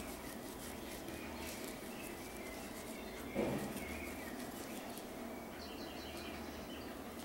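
Faint short bird chirps over a steady low background hum, with one soft thump about three and a half seconds in.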